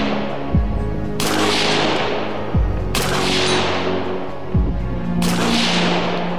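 Electronic background music with a low kick every two seconds and held synth chords, over three sharp AR-15 rifle shots about two seconds apart, each a crack that rings out and fades over about a second.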